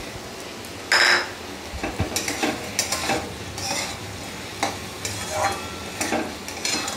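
Metal spatula stirring and scraping soaked chana dal, tomato and spice paste around a metal kadai while the mixture sizzles in the oil. A loud scrape about a second in, then repeated scraping strokes over a steady frying hiss.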